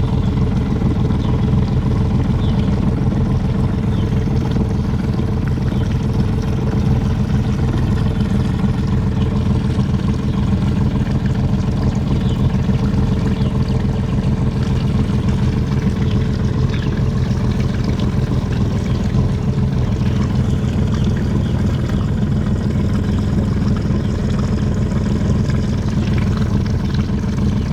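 Motorboat engine running with a steady, even hum as the boat cruises.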